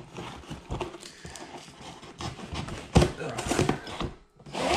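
A knife blade sawing and scraping through packing tape on a taped-up cardboard shipping box, with scattered clicks and rustling. There is a sharp knock about three seconds in and a short rasping tear near the end.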